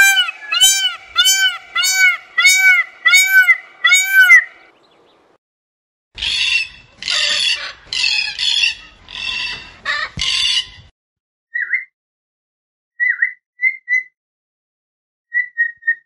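Peafowl calling: a series of about seven loud, arched calls roughly half a second apart. From about six seconds in come about six harsh squawks, and short high chirps follow near the end.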